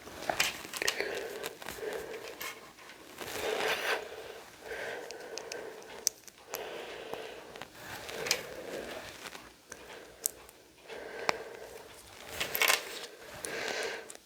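Crinkling and rustling of packaging in irregular bursts, with a few sharp clicks from handling small LEGO pieces.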